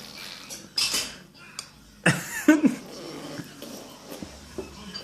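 Mouth-made fart noises (blown raspberries): a short sputter about a second in, then a louder, longer one with a sliding pitch around two seconds in.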